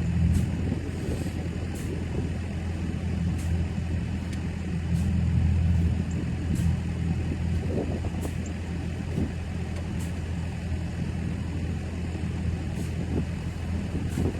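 An engine running steadily at a low, even hum, with faint light clicks about every second and a half.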